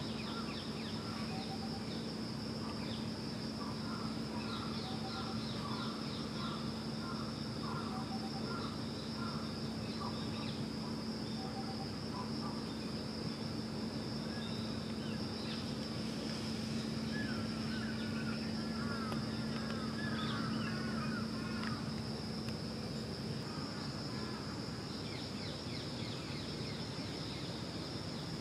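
Outdoor late-summer ambience: insects drone steadily on one high note, small birds chirp in quick runs of short notes, and a low steady mechanical hum sits underneath.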